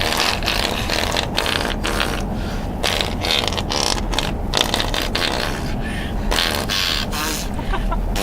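A child making a continuous string of short fake fart noises as a song, over the steady low rumble of a car on the road.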